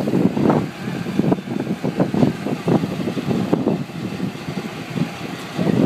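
Wind buffeting the microphone in irregular gusts on a boat deck at sea, over the boat's engine running.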